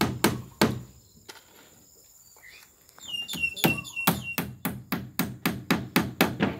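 A hammer nailing a plywood wall panel to a timber frame, with sharp strikes about three a second. After the first three strikes there is a pause of about two seconds, then a steady run of strikes.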